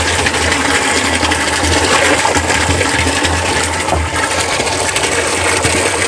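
Water from a pump's delivery hose gushing and splashing steadily into a water tank: the electric pump motor has switched on because the float switch has tipped down to the low-level position.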